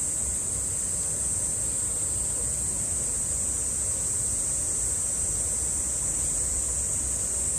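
Cicadas droning in a steady, high-pitched summer chorus, over a steady low background rumble.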